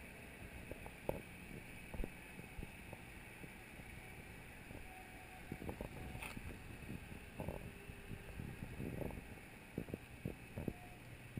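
Wind rumbling on the microphone, with scattered light knocks and scuffs at irregular intervals and one sharp click about six seconds in.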